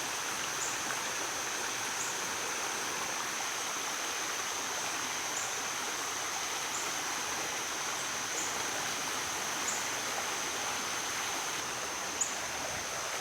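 Steady rush of running water, like a woodland stream, with a thin, steady high whine over it and a faint short chirp repeating about every second and a half.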